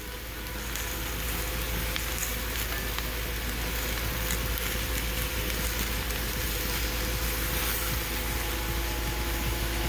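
Steak, potatoes and peppers frying in a cast-iron skillet on a propane camp stove: a steady sizzle, with a few faint clicks as the food is turned with metal tongs.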